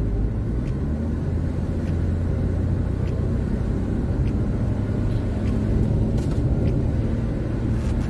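Steady low rumble of engine and tyres heard from inside a moving car's cabin, with a few faint ticks.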